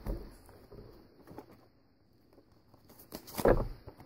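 Handling noise from a shrink-wrapped steelbook case being turned over in the hands: a soft knock at the start, a near-silent pause, then a few short knocks and rustles with one louder bump about three and a half seconds in.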